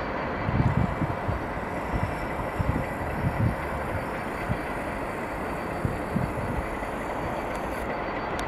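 BR Class 37 diesel locomotive's English Electric V12 engine running as it hauls a short train slowly along the approach tracks, heard as a steady rumble with irregular low thumps.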